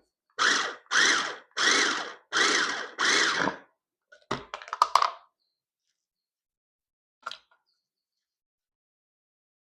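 Food processor pulsed five times in short bursts, chopping soaked walnuts into a crumbly taco-meat texture, followed by a few sharp clicks and knocks and a single click a little later.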